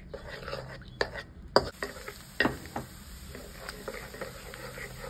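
Sliced garlic sizzling in hot oil in a wok, being fried toward light golden, while a wooden spatula stirs it. Several sharp knocks and scrapes of the spatula against the wok; the loudest comes about a second and a half in, where a higher sizzle comes in.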